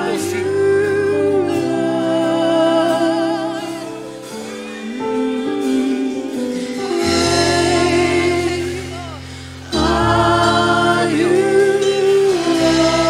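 Church worship team singing a gospel worship song, several voices with vibrato over electric bass and held chords. The low notes drop out for a few seconds in the middle, and the music comes back in louder about ten seconds in.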